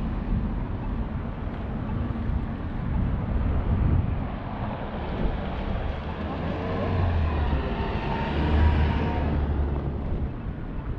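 Wind buffeting the microphone during a snowstorm street walk, with a vehicle driving past that swells and fades, loudest about eight or nine seconds in.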